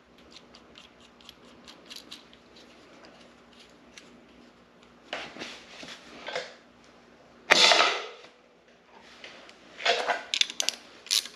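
Small metal clicks and clinks of valve springs, retainers and a valve spring compressor tool being handled on an LS V8's cylinder head. About seven and a half seconds in there is one loud sharp metallic snap, and a few quick clicks come near the end.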